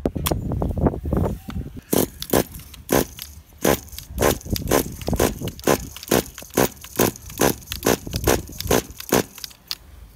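Pull starter of a nitro RC truck's glow engine yanked in quick short pulls, about two or three a second, each a sharp scraping rasp. The engine does not catch.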